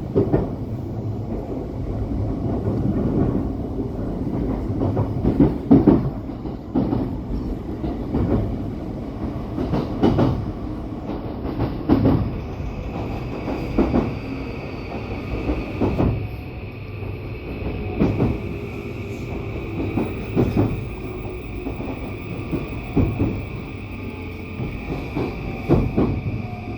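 Yokosuka Line train running on the rails, its wheels knocking over rail joints every second or two over a steady low rumble. A high, thin steady whine comes in about halfway and holds.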